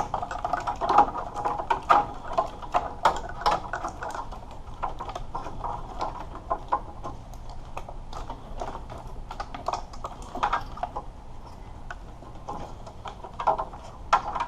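Wiring harness being pulled up and handled in an engine bay: irregular clicks, ticks and rattles of its plastic connectors and wire bundles knocking together.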